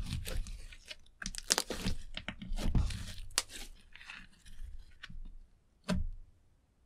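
Thick slime with eyeshadow mixed in being squeezed, stretched and folded by hand: rapid wet crackles and pops of trapped air. One heavier thud about six seconds in as the coiled slime is set down.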